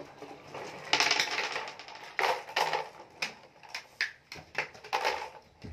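Plastic toy dump trucks being handled and knocked together on a wooden floor: an irregular string of clattering clicks and knocks, the loudest about a second in.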